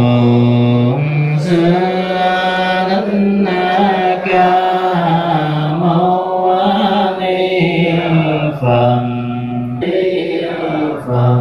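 Vietnamese Buddhist chanting: long held notes that step up and down in pitch, with a few short breaks for breath.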